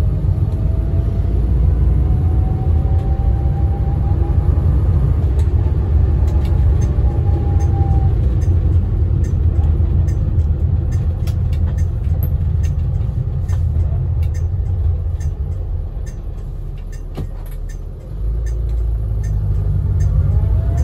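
1975 Austin Allegro's 1098cc A-series engine and four-speed gearbox heard from inside the cabin on the move: steady engine and road rumble, with the gearbox whine rising in pitch over the first several seconds as the car pulls through a gear. The engine quietens as the car slows, drops away briefly near the end, then picks up again with the whine rising once more. Light regular ticks come in during the second half.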